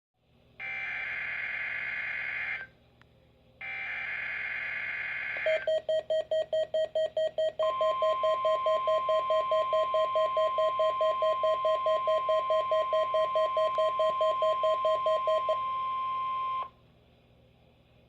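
NOAA Weather Radio alert signals. Two short buzzing bursts of digital SAME header data play first. A fast beeping then starts, and about two seconds later the steady 1050 Hz warning alarm tone joins it and holds for about nine seconds before cutting off. This is the signal that switches weather alert radios on for a test.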